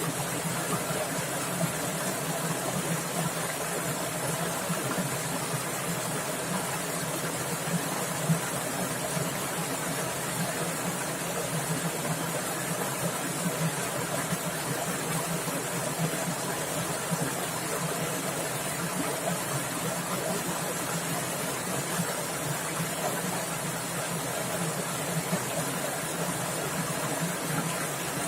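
Fast-running stream water splashing over rocks, a steady rushing noise with small irregular splashes.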